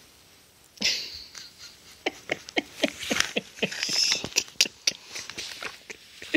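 A young child making a quick run of short, breathy squeaks and gasps right at the microphone, starting about a second in.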